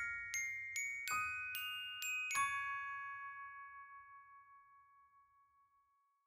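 Closing background music of bell-like struck notes, like a glockenspiel, played slowly at about two or three notes a second. The last note comes about two and a half seconds in, then rings on and fades out to silence.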